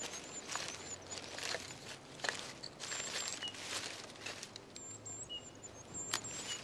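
Dry twigs crackling, snapping and rustling in irregular bursts as a white-tailed eagle works sticks into its nest with its beak. Thin, high bird calls come and go in the background.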